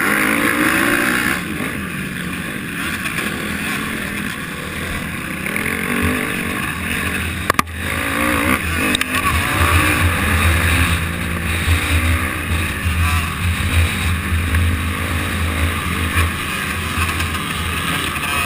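Honda 250 motocross bike's engine heard from on board while racing on a dirt track, its pitch rising and falling with the throttle over track and wind noise. A sharp knock about seven and a half seconds in.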